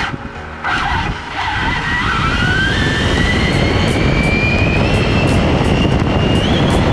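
Arrma Infraction 6S BLX RC car's brushless motor and drivetrain whining, rising steadily in pitch as the car accelerates hard from almost a standstill to about 44 mph. Steady tyre and wind rush on the onboard camera runs under the whine.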